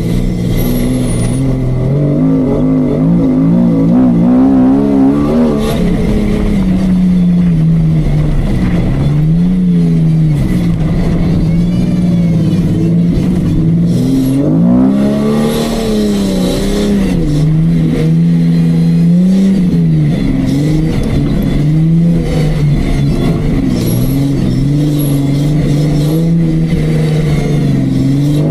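Off-road Jeep's engine running hard under load, its pitch swinging up and down again and again as the throttle is worked.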